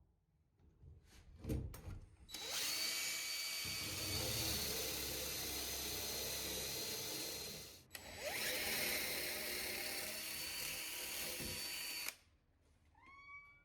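DeWalt power drill boring into solid oak with a Forstner bit, in two steady runs of about five and four seconds with a brief pause between, after a few knocks at the start.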